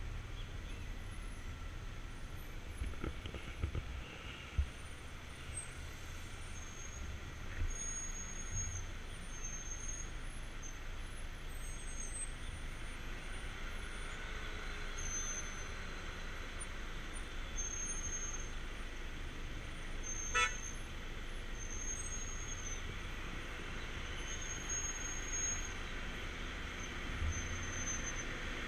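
Slow stop-and-go highway traffic: a steady hum of idling and creeping car and truck engines with low rumble, a few short thumps in the first several seconds, and one short horn toot about two-thirds of the way through.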